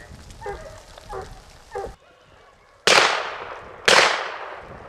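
A few short dog barks, then two .410 shotgun shots about a second apart, each trailing off in a long echo.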